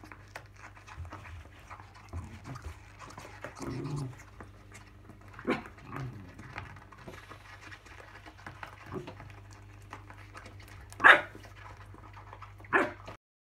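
Miniature schnauzer panting and moving about, with many small scratchy clicks. Two short, loud sounds from the dog come near the end, under two seconds apart.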